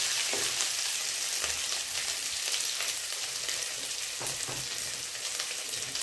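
Chopped ginger sizzling steadily in hot olive oil in a nonstick kadai, with faint crackles, and a wooden spoon stirring it just at the start.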